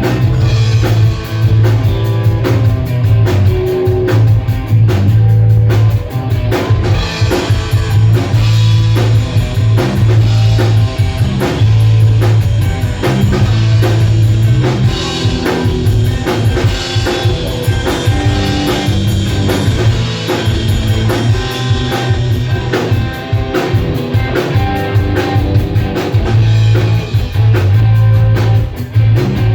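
Rock band playing a song live, with drum kit and guitar over a heavy bass line.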